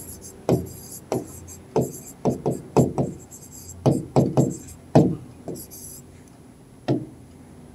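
Marker pen writing on a glass board: about a dozen short taps and scratchy strokes as letters are written, stopping about seven seconds in.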